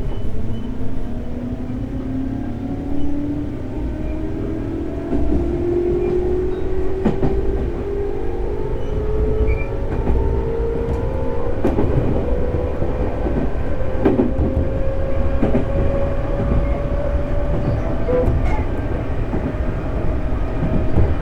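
211 series electric multiple unit under way, accelerating: the traction motor whine rises steadily in pitch over a steady rumble of wheels on rail, with scattered rail-joint clicks.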